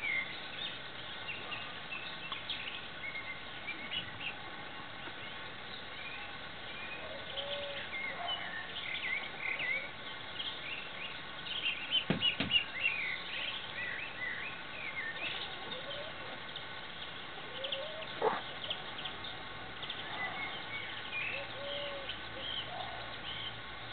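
Small birds chirping and twittering, with many short, high calls coming in scattered bursts. A few lower, curved calls are mixed in. Two sharp knocks stand out, one about halfway through and another a few seconds later.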